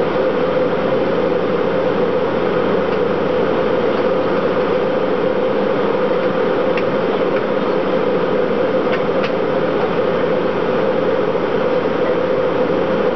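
Steady cabin noise of a Boeing jet airliner in flight: engines and rushing air make an even drone with a strong hum, and a few faint clicks come near the middle.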